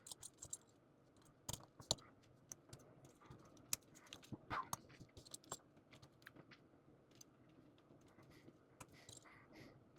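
Small plastic model-kit parts clicking and tapping as they are handled and fitted together: faint, irregular clicks, with a small cluster about four and a half seconds in.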